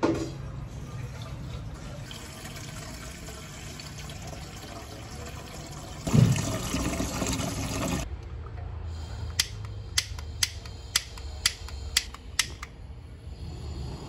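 Tap water running into a metal pot, loudest from about six seconds in. Then about eight sharp clicks, roughly two a second, as a gas burner is lit.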